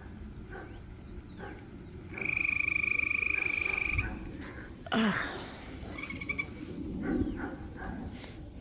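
An animal's high, fast-pulsing trill on one steady pitch, held for about two seconds and briefly repeated later, with a short loud call that falls steeply in pitch about five seconds in.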